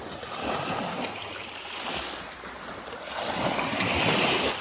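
Waves washing at the estuary, with wind buffeting the microphone; the wash swells about three seconds in.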